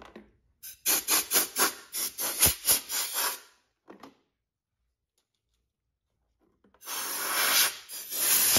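Compressed-air blow gun blowing drill debris away: a quick series of short blasts, about four a second, for roughly three seconds, a pause, then one longer blast near the end.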